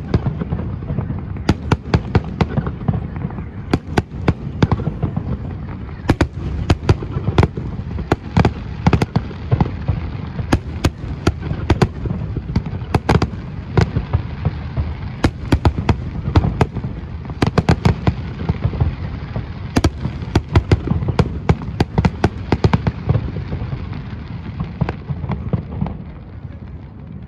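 Fireworks display: a rapid, near-continuous barrage of shell bursts and crackling bangs, thinning out over the last few seconds.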